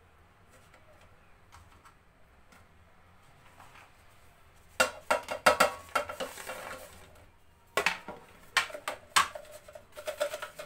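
Raw chebakia pastries being dropped into an air fryer's nonstick basket and the basket being handled, giving quiet rustling at first, then a run of sharp clatters and knocks from about five seconds in, with a short pause and more clattering near the end.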